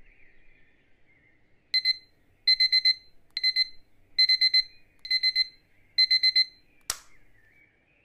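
Digital alarm clock beeping in quick groups of about four beeps, a group roughly every second, then a single sharp click near the end, after which the beeping stops.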